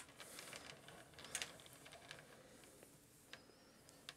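Faint clicking and rattling of a display turntable being turned by hand, with a few sharper clicks near the start, about a second in, and near the end.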